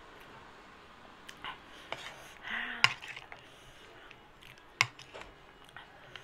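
Metal spoon scraping and clinking against a plate of chatpate, with two sharp clinks about three and five seconds in, amid soft eating sounds.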